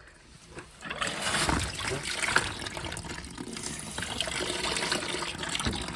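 Water flushing out through a boiler feed-water pressure-reducing valve with its strainer screen out, a steady rush of running water that starts about a second in, washing debris out of the valve.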